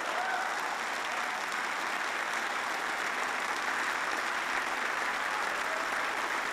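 Large congregation applauding steadily.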